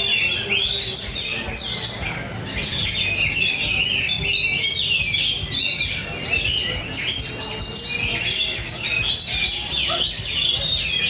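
Many caged songbirds singing at once, a dense overlapping chorus of chirps and trills.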